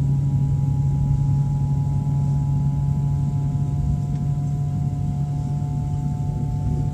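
Passenger train running, heard from inside the carriage: a steady low rumble and hum, with two thin high whining tones that drift slightly lower in pitch.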